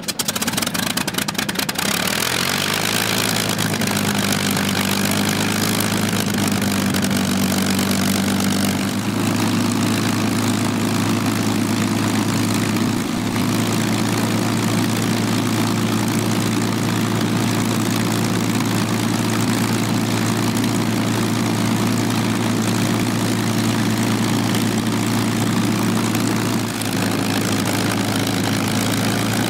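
P-51D Mustang's Packard V-1650-7 Merlin V12 engine running at a steady low idle. The pitch climbs over the first couple of seconds, then settles into an even throb.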